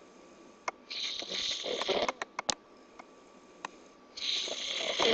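A man snoring loudly: two long snores, each just over a second, about three seconds apart, with a few short clicks in between.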